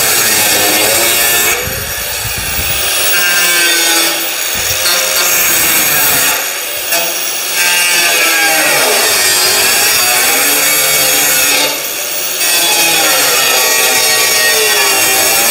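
Angle grinder working metal, a loud hissing grind with the motor's pitch sagging under load and climbing back. It eases off briefly four times.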